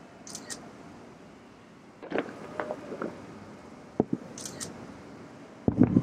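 Distant fireworks shells bursting: a cluster of booms with rumbling echoes about two seconds in, two sharp bangs about four seconds in, and a louder rumbling volley near the end.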